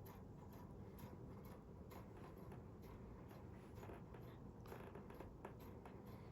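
Near silence: faint room tone with soft, irregular little clicks.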